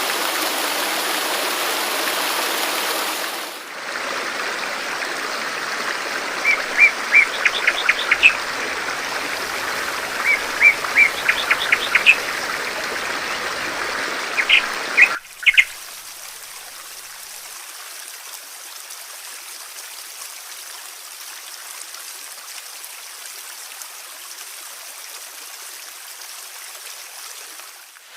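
Steady rush of flowing stream water, joined after a few seconds by a songbird giving quick runs of chirps three times. About halfway through, the sound cuts abruptly to a quieter, softer steady hiss of running water or rain.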